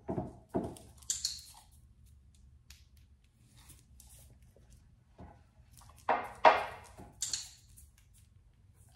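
Canine nail scratchboard dragged over the floor in short scraping strokes: three in the first second and two louder ones about six seconds in. Each group is followed within about a second by a sharp click from a training clicker.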